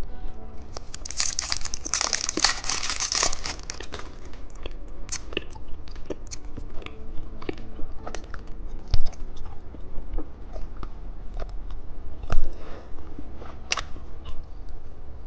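Plastic candy wrapper crinkling and tearing open for a few seconds, followed by scattered small clicks and crinkles of candy and packaging being handled, with two sharper clicks later on.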